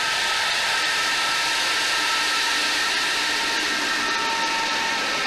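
Tu-22M3 bomber's twin Kuznetsov NK-25 turbofan engines running while it taxis: a steady rushing hiss with several high whining tones held over it.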